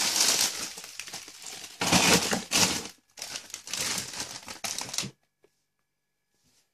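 Plastic bags of frozen fish crinkling and rustling as they are handled and pushed into a chest freezer's wire basket, louder in a couple of surges about two seconds in. The rustling stops suddenly about five seconds in.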